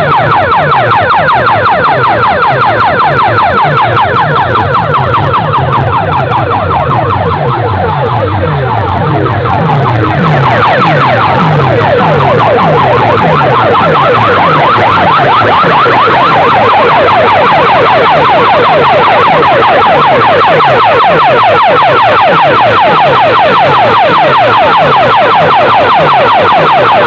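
Large DJ sound-system speaker stacks blasting a siren-like competition track: a fast, evenly repeated run of falling tones with a heavy bass layer. The track gets louder and brighter about ten seconds in.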